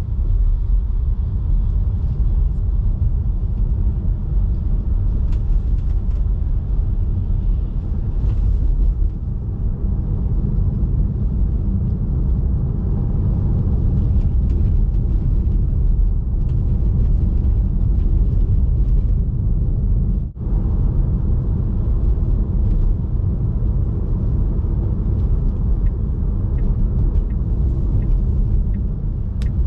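Steady low rumble of road and tyre noise from a Tesla Model 3 on all-season tyres driving over unplowed snow and ice, with a brief dip about twenty seconds in.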